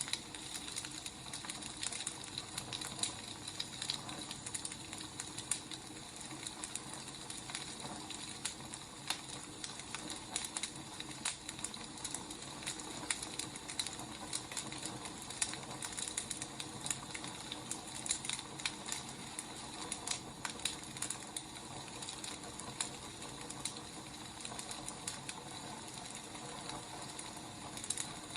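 Firewood burning in a fire, crackling: a steady hiss with frequent small irregular pops and snaps.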